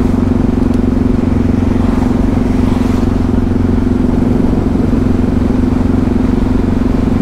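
Yamaha MT-03 660's single-cylinder four-stroke engine running at a steady cruise while riding, its pitch holding constant, with wind rushing over the bike.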